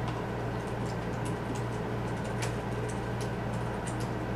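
Soldering a battery wire into a bullet connector's solder cup with a soldering iron: scattered faint ticks and crackles of heated solder and flux, over a steady low hum.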